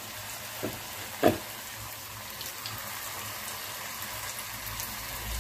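Cabbage pakoda batter deep-frying in a kadai of hot oil: a steady bubbling sizzle, with two short taps about a second in.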